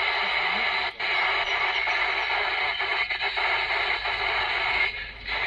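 A CB radio's speaker hissing with static as a noisy distant signal holds the squelch open: a steady rush of noise with a brief drop about a second in.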